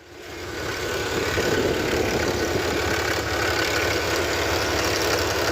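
Cummins diesel engine in a Ram pickup running at idle. It swells up over about the first second and a half, then holds steady.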